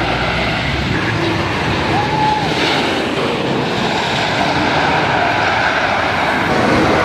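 Great Coasters International wooden roller coaster train rolling fast along its wooden track, a steady noise of wheels on the track.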